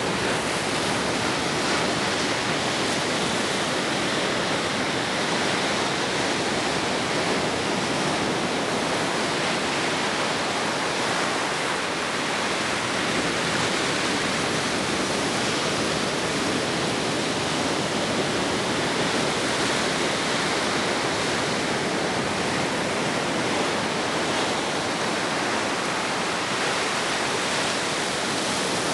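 Ocean surf washing on the shore as a steady, even hiss.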